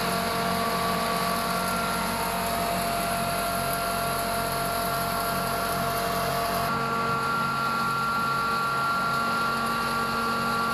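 Atta chakki (electric flour mill) running steadily on its 15 hp electric motor: a constant machine hum and whir over a mix of steady whining tones. About two-thirds of the way through, the tones change abruptly.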